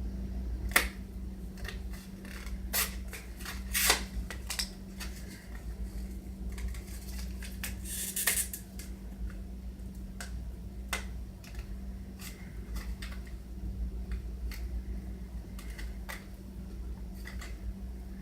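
Irregular small clicks and taps with a few short rustles, over a steady low hum: small items and their plastic packaging being handled and opened.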